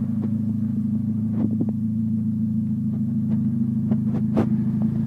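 Morgan Plus 4's four-cylinder GDI engine idling with a steady low hum, with a few light clicks over it.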